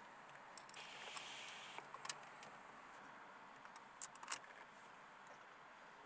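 Faint metallic clicks and rattles of a Works Bell Rapfix II quick release being handled and fitted onto the steering hub, with the two sharpest clicks about four seconds in.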